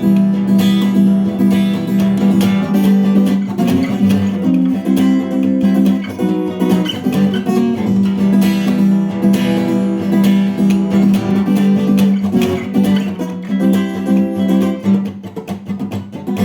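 Acoustic guitar strumming chords over a steady held low note: the instrumental intro of a song, with no singing yet.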